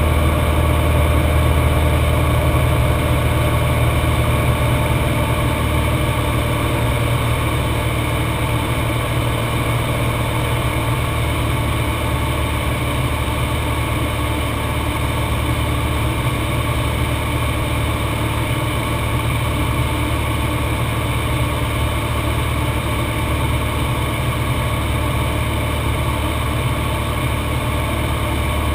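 Cessna 182's piston engine and propeller running steadily in flight, heard from inside the cockpit as a constant low hum with many even tones.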